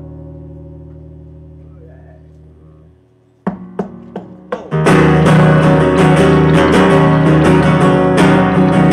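Acoustic guitar and electric bass: a held chord rings out and fades over about three seconds, then four sharp strummed chords, and from about five seconds in the guitar strums steadily and loudly with the bass playing along.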